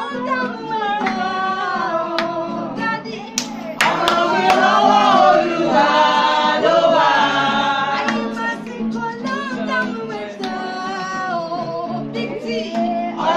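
A woman singing a love song to acoustic guitar accompaniment, the singing swelling louder about four seconds in.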